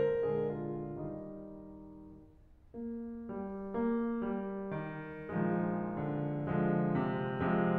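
Background piano music. The notes die away about two seconds in, then a new phrase starts and builds.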